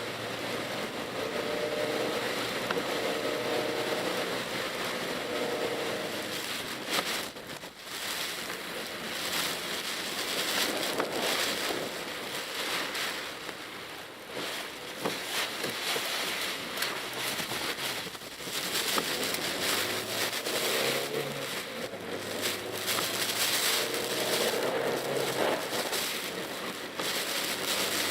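Cabin sound of a Mitsubishi Pajero Mini driving on wet roads in typhoon rain: a steady hiss of tyre spray and rain, with the engine note coming up at the start and again near the end.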